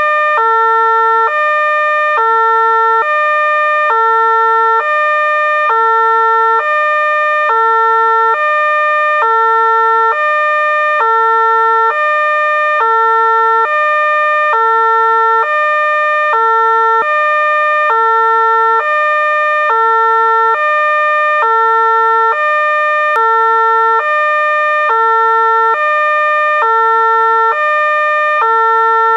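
Fire engine's two-tone hi-lo siren, switching abruptly between a lower and a higher note, each held about half a second, so one high-low cycle per second. Steady and loud, with no rise or fall in pitch within each note.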